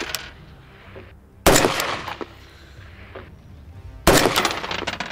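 Two rifle shots from an 11.5-inch-barrel Noveske AR-15 in 5.56, about two and a half seconds apart, each a sharp crack trailing off over about a second.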